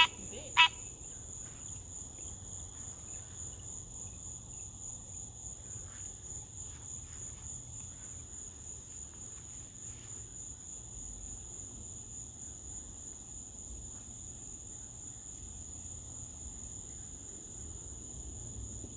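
A chorus of night insects trilling in one steady high-pitched note. Right at the start, one last loud, sharp call from an unseen animal ends a short run of calls.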